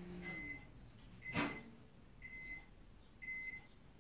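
Microwave oven finishing its cooking time: its running hum winds down right at the start, then the end-of-cycle beeper sounds four short beeps about a second apart, with a sharp click between the first beeps.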